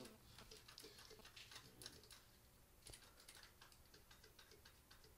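Near silence with faint, irregular small clicks and taps of hands working on a go-kart's frame and engine parts.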